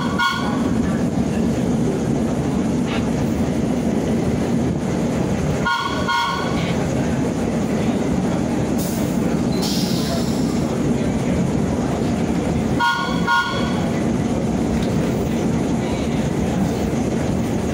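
Vintage BMT AB Standard subway train running, a steady loud rumble of wheels and motors on the track heard from inside the open-windowed car. A short horn toot sounds three times, about six to seven seconds apart, and there is a brief high hiss about nine seconds in.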